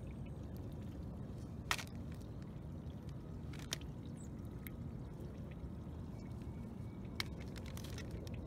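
A few sharp clicks and fainter ticks of freshwater snail shells knocking together as they are picked up off a pile and dropped into a plastic bag, over a steady low rumble.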